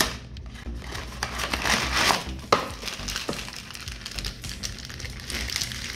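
A cardboard cereal box being torn open, then its inner plastic bag crinkling and rustling as it is pulled out and handled, with a sharp snap about two and a half seconds in.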